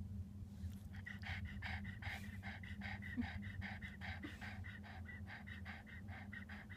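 A pug panting rapidly and evenly, about four to five breaths a second, starting about a second in.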